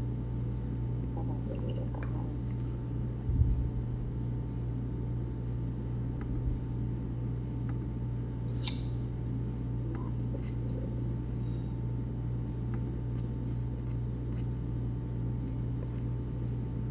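Steady low hum over a faint background hiss, with a brief low thump about three seconds in and a weaker one a few seconds later.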